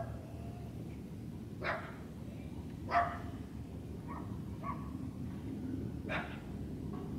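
A dog barking: five short barks spread over several seconds, the second the loudest, over a steady low rumble.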